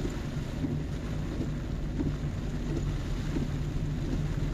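Steady car cabin noise: the engine running and tyres on a rain-soaked road, with rain on the car.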